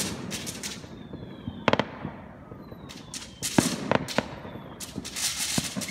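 Fireworks going off: a string of sharp bangs and crackling bursts, the loudest a bang a little under two seconds in and another in the middle, with a couple of faint falling whistles.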